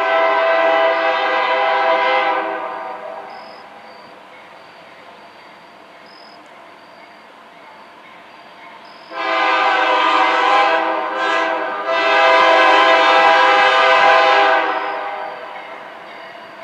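Freight train's multi-note locomotive air horn sounding for a road crossing as the train approaches. One long blast, then after a pause a long, a short and a long, with a low train rumble beneath.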